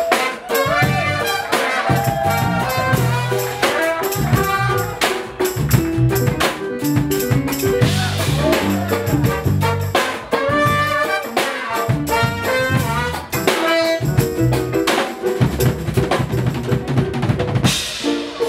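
Live jazz-funk band playing: a drum kit keeping a busy beat under an electric bass line, with a horn section of saxophone and trumpets playing melodic lines on top.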